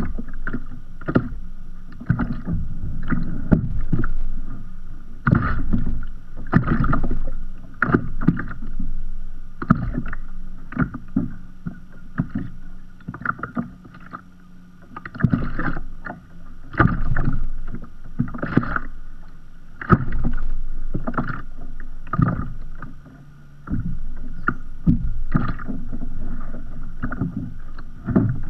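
Sea water lapping and slapping against a kayak's hull, heard from on board as irregular slaps and splashes, roughly two a second, over a constant wash of small waves.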